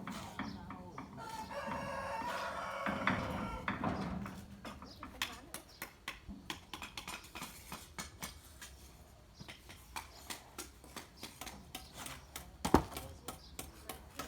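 A rooster crowing once, one long wavering call in the first few seconds, followed by a run of irregular light taps and knocks, with one sharp loud knock near the end.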